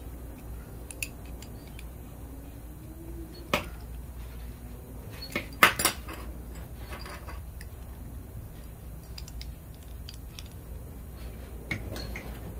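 Metal tools clinking and knocking against a steel table as a die grinder and an adjustable wrench are handled. There are a few sharp clinks, the loudest cluster about six seconds in, over a low steady hum.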